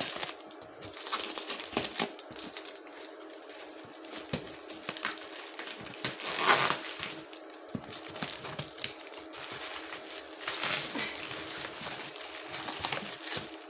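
Packaging crinkling and rustling in irregular bursts as a parcel is unpacked by hand, with one louder crackle about six and a half seconds in.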